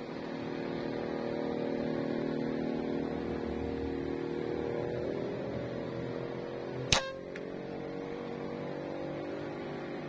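A single sharp crack of a scoped air rifle firing about seven seconds in, with a brief ring after it, over a steady low hum.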